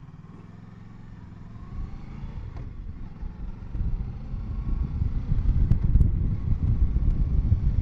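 Kawasaki Versys 650 parallel-twin engine pulling away and accelerating, its pitch rising in the first couple of seconds. A low rumble of wind and road noise grows louder from about halfway as speed builds.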